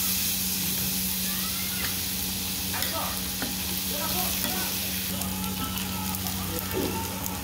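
Dakgalbi with noodles and fried rice sizzling on a large round iron griddle pan while a spatula stirs and scrapes through it, over a steady low hum.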